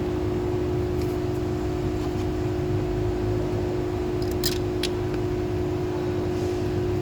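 A steady machine hum with a constant tone and a low rumble throughout, and a few short plastic clicks about four and a half seconds in as an ignition coil is handled and fitted.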